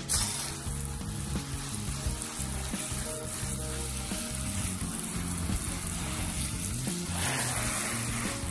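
Garden hose spray nozzle spraying water onto freshly pulled beetroot on grass: a steady hiss, a little stronger near the end.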